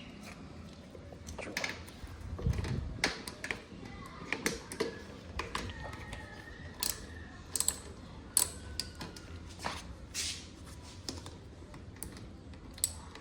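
Hand tool working loose a motorcycle seat bolt: scattered, irregular light metallic clicks and taps.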